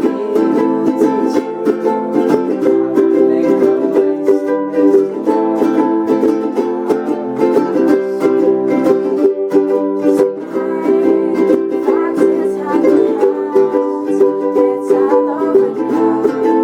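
An ensemble of ukuleles strumming chords in a steady rhythm, playing a pop-rock song.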